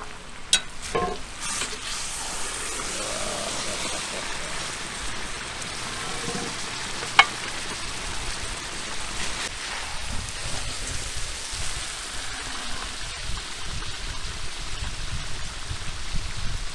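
Lamb syrne stew sizzling and simmering in a kazan, a steady hiss, with a few knocks near the start and one sharp clink about seven seconds in.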